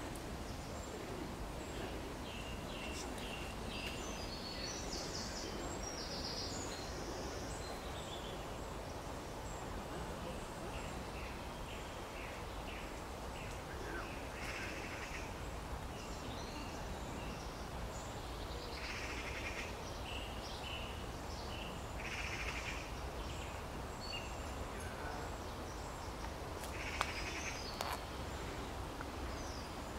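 Outdoor ambience: a steady low background hiss with short bird chirps and calls scattered through it, coming in small clusters every several seconds.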